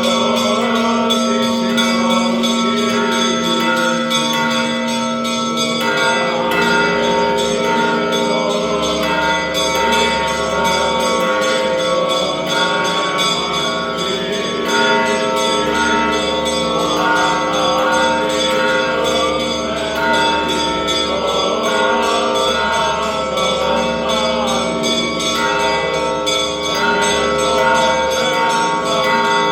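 Church bells ringing continuously, their sustained tones overlapping without a pause.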